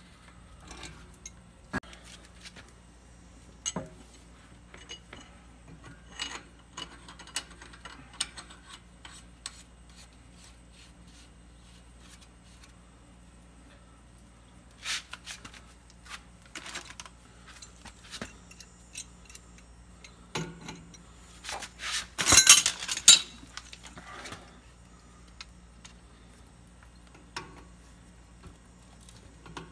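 Scattered metallic clinks and knocks of hand tools and threaded pipe fittings being handled while plumbing is put back together, with a louder burst of clattering about two-thirds of the way through.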